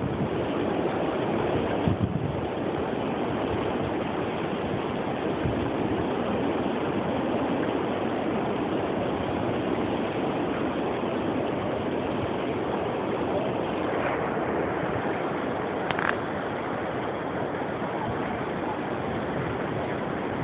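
Strong hurricane wind blowing steadily, rushing through a willow tree's branches and buffeting the microphone, with a couple of brief clicks.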